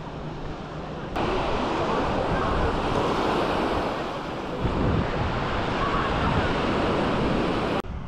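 Small sea waves breaking and washing up on a sandy beach, a steady rushing surf that starts suddenly about a second in and cuts off just before the end.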